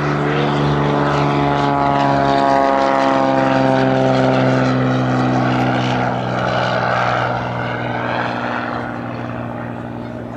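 Beechcraft Bonanza's single piston engine and propeller at takeoff power passing by, its tone dropping in pitch as it goes past and then fading away.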